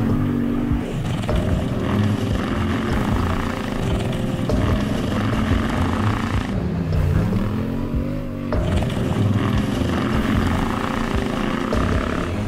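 Quad bike (ATV) engine running hard at high revs. About six and a half seconds in the revs fall away and then climb again over the next two seconds.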